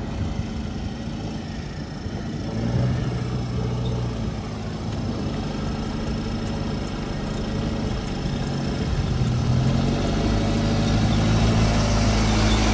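A 4x4's engine running steadily as it drives over an off-road track, its note shifting a few times and growing louder near the end.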